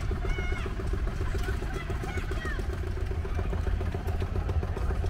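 An engine idling, a steady low running sound with an even, rapid beat.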